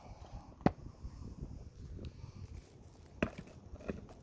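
Handling noise from a camera being moved and set down, with a low rumble and three sharp knocks, and a few steps on stony ground.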